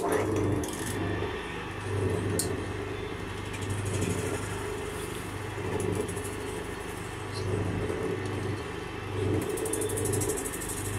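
Small benchtop metal lathe running, its motor humming steadily while a hand-held tool cuts a meerschaum pipe bowl turning in the chuck; the sound swells and eases every couple of seconds as the cut is worked.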